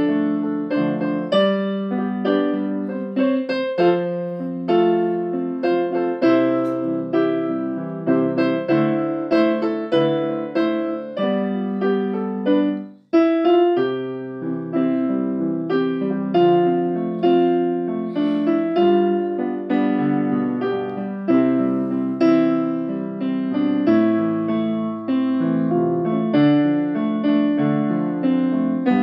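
Piano music, chords and notes struck and left to ring. It cuts out for an instant about halfway through, then carries on.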